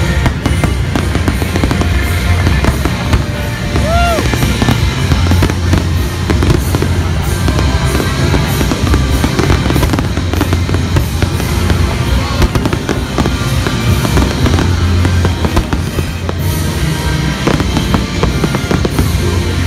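Aerial fireworks going off in quick succession, with pops and crackling, over music.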